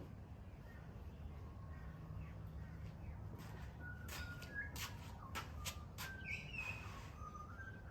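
Wild birds calling: short, clear whistled notes and chirps, mostly in the second half, with a few sharp clicks among them over a low steady hum.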